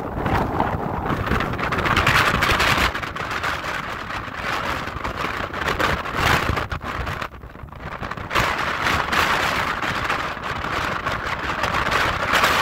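Strong gusting wind buffeting the microphone, surging and easing, with a brief lull about halfway through.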